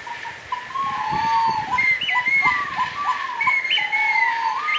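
A handheld whistle blown through cupped hands, playing sliding whistled notes that rise and drop in short repeated, bird-like calls.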